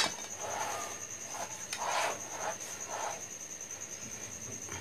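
A knife sawing horizontally through a soft chocolate sponge cake on a plate: a sharp click at the start, then a few soft scraping strokes. A steady high-pitched pulsing trill runs underneath.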